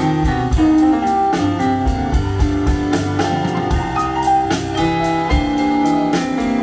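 Live band playing a steady upbeat tune on guitar, keyboard and drum kit, with regular cymbal and drum strokes under the held notes.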